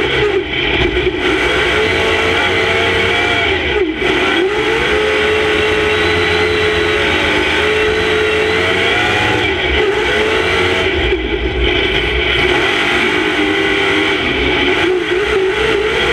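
Monster truck engine heard from inside the cab, running loud and hard, its revs dropping sharply about four seconds in and climbing again near ten seconds, then holding high.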